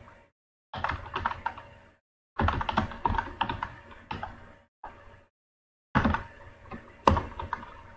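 Computer keyboard typing: runs of quick key clicks broken by a few brief silences.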